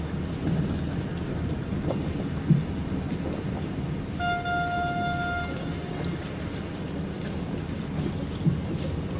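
Marina ambience: a steady low hum with wind on the microphone. A single held tone sounds for about a second and a half near the middle, and there are two brief dull knocks about six seconds apart.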